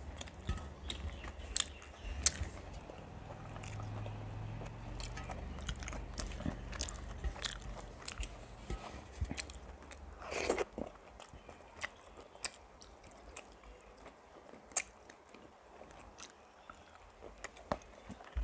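Close-miked chewing and biting of rice with fried vegetables, with scattered sharp crunches and wet mouth clicks. A low hum underneath fades out about ten seconds in.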